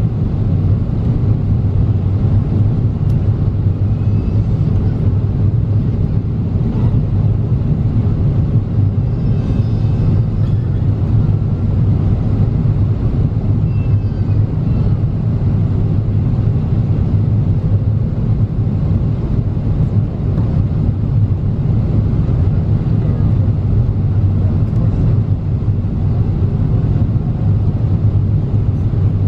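Steady low rumble of cabin noise inside a Boeing 777-300ER on descent: airflow over the fuselage and its GE90 engines.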